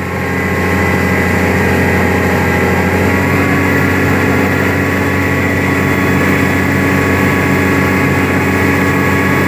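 Engine of an amphibious tour vehicle running steadily as it cruises on the water, a low, even drone heard from aboard, rising slightly in the first second.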